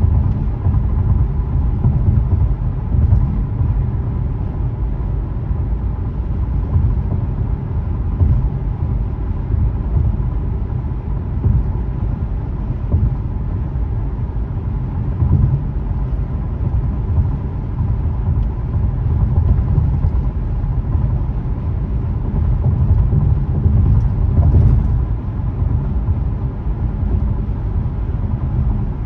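Steady low rumble of tyre and engine noise heard inside a car's cabin while cruising at highway speed.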